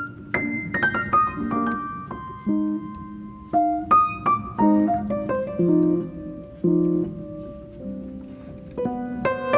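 Background piano music: a slow melody of single notes over soft chords.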